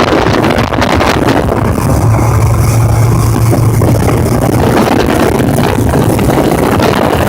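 Jet ski engine running steadily and loudly, with a strong low hum over a rough, noisy wash.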